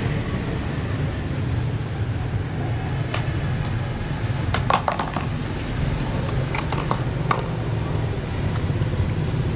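Small plastic stool clacking and scraping against paving tiles in a handful of light knocks, bunched around the middle, over a steady low rumble of street noise.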